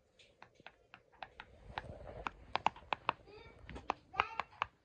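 Silicone pop-it fidget toy's bubbles being pressed in by fingers: a quick, irregular run of small pops, several a second.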